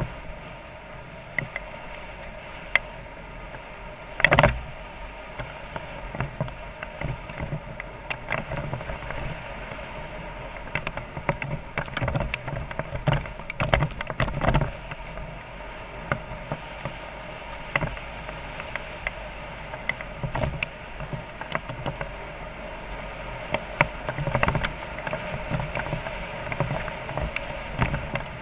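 BMW F650GS Dakar motorcycle's single-cylinder engine running steadily on a rough gravel track, under the knocks and rattles of the bike going over bumps. The knocks are loudest about four seconds in and from about twelve to fifteen seconds in.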